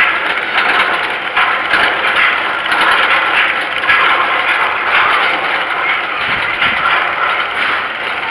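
Dragon Fire, an Arrow Dynamics steel looping coaster, its train being hauled up the chain lift hill: a steady mechanical clatter of the lift chain with rapid ratcheting clicks of the anti-rollback dogs.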